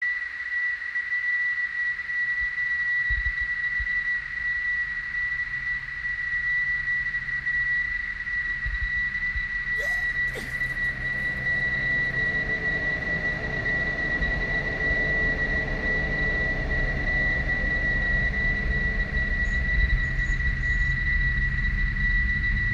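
Experimental noise soundtrack: one steady high-pitched tone over a low rumbling drone that thickens about halfway through, with a brief crackle about ten seconds in.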